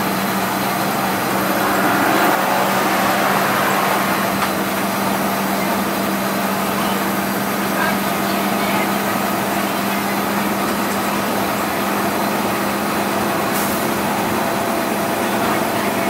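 Cummins 5.9 straight-six turbo-diesel of a school bus running steadily at highway speed, heard from inside the cabin as an even drone with road noise.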